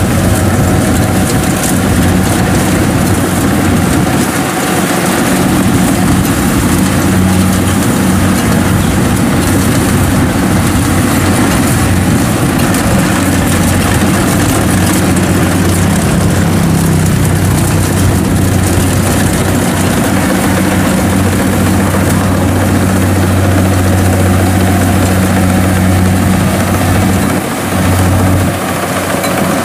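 Kubota DC70 Plus rice combine harvester running steadily while harvesting: a loud, even diesel engine drone with the machine's working clatter. The level dips briefly near the end.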